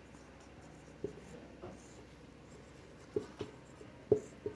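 Marker pen writing on a whiteboard: short strokes and taps of the felt tip. A few come singly, then several follow in quicker succession in the last second and a half.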